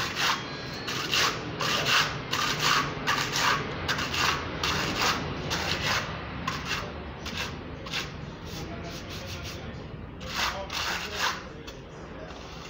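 Plastic float rubbing in repeated strokes across a Ruff and Tuff textured wall coating, at about two scraping strokes a second. The strokes thin out after about eight seconds, with a few more shortly after ten seconds.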